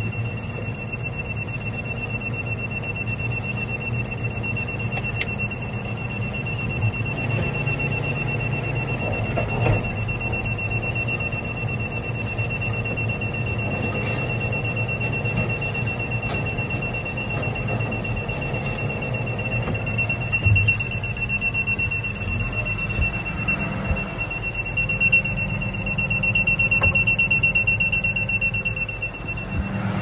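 A steady high-pitched warning buzzer sounds without a break over the low hum of a running tractor engine, cutting off just before the end.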